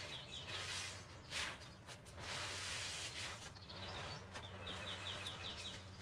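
Songbirds chirping, several quick runs of short high notes, over the wet squishing and splashing of a soapy sponge being squeezed and rinsed, with a steady low hum beneath.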